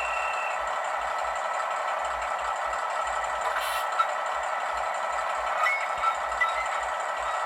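Recorded diesel railbus engine sound from a LokSound V5 Micro sound decoder, played through a tiny sugar cube speaker in an H0 model: a steady thin engine running with no bass, with a few light clicks past the middle.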